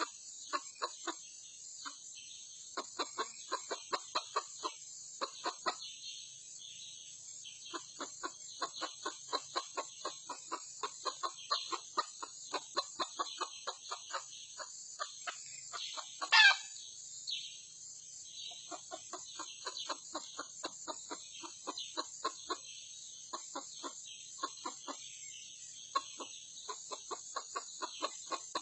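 Red junglefowl clucking in long runs of short, evenly spaced clucks, two to three a second, with pauses between the runs. About halfway through comes one loud, brief call that falls sharply in pitch.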